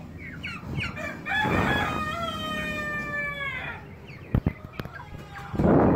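Brahma chickens calling: a few short chirpy calls, then a cockerel's long, drawn-out crow lasting over two seconds that drops at the end. A few sharp clicks follow, and a loud burst of noise comes in just before the end.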